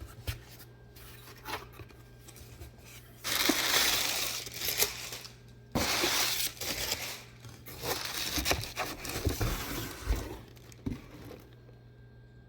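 Packaging being torn open and crumpled by hand, in two long rips with rustling and small handling clicks around them.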